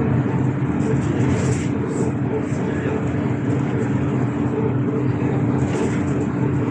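AKSM trolleybus driving along, heard from inside the passenger cabin: a steady electric drive hum over tyre and road noise.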